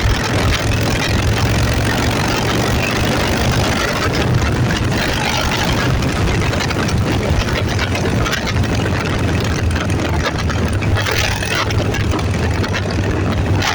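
A vehicle engine running steadily at a constant pace under a dense, even rush of noise.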